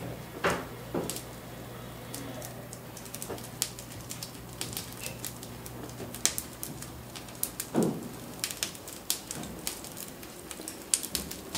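Kindling fire crackling and popping in the open firebox of a coal-fired steam boiler as it catches among the coal, with clunks of coal lumps being shifted by hand about half a second in and again near eight seconds. A steady low hum runs underneath and stops near eight seconds.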